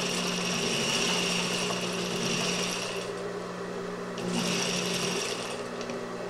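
Industrial sewing machine stitching through layers of mask fabric in two runs: a longer one, then a pause of about a second, then a shorter burst that stops shortly before the end. A steady low motor hum carries on through the pause.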